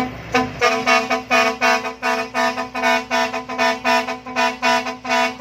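Vehicle horn sounded in quick rhythmic blasts on one unchanging pitch, about three a second, played as a beat.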